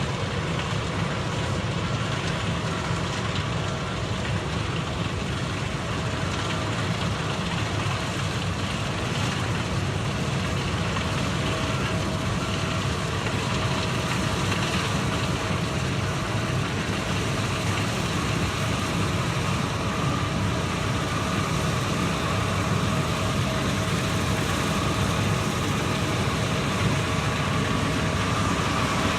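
Combine harvester running steadily while cutting soybeans: a continuous, even engine drone with a few faint steady whining tones over it.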